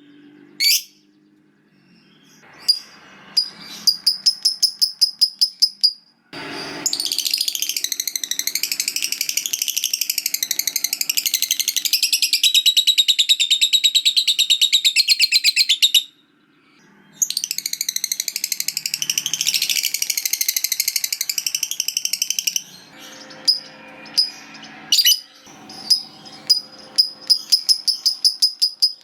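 Lovebird's 'ngekek panjang' song: a long, high, rapid chattering trill of about ten seconds that wavers in pitch, a short break, then another run of about five seconds. Shorter rattling series and single chirps come before and after.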